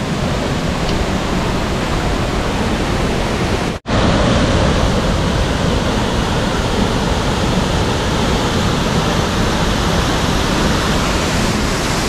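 Savari waterfall's water pouring and crashing in a loud, steady rush, cut off for an instant about four seconds in.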